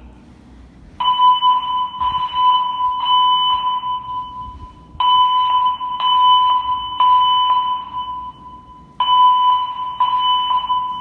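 Voice-evacuation fire alarm speakers (System Sensor SPSR speaker strobes) sounding their high, steady alert tone between spoken evacuation messages. The tone starts about a second in and comes in stretches of about four seconds with short breaks, pulsing faintly about twice a second.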